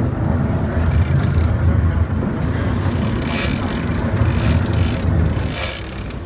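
Fishing boat's engine running with a steady low rumble, with two short hissing swishes about three seconds in and near the end.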